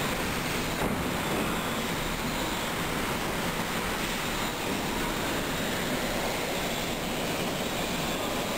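Super typhoon winds with driving rain: a steady, unbroken rush of noise.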